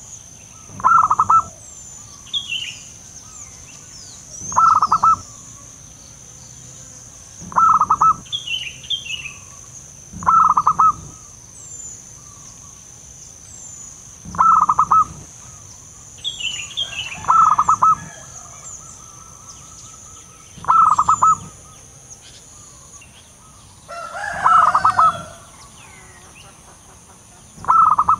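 Wild zebra dove (perkutut) cooing: a short, rapid stuttering coo repeated about every three to four seconds, eight times, with small birds chirping faintly behind.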